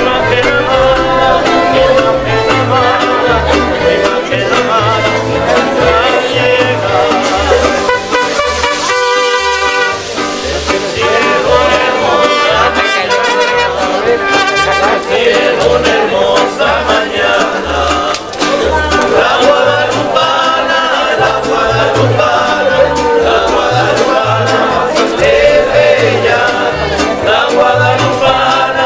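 Music with singing over a regular, pulsing bass beat.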